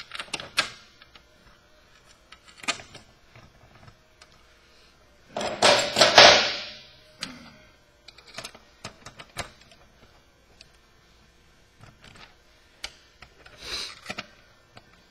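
Scattered metallic clicks and taps of bolts and a hand tool being worked into the fuel cell's top plate while the bolts are started, with a louder, denser rattle about halfway through and a smaller one near the end.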